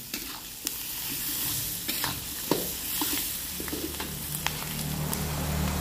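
Goat meat and vegetables sizzling in a hot wok while a metal spatula stirs them, scraping and clicking against the pan now and then. A low steady hum comes in about halfway through.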